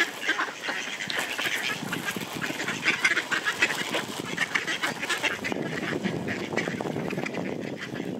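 A flock of mallard ducks quacking, many birds calling at once in a dense, continuous chatter.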